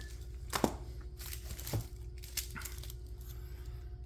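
Fireworks packaging being handled: a few sharp clicks and light rustling, the loudest click about half a second in, over a steady low hum.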